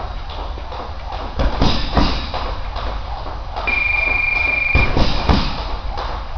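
Gloved punches landing on a hanging heavy bag: a pair of dull thuds a couple of seconds in and a quick cluster of three about five seconds in. A steady high beep sounds for about a second just before the cluster.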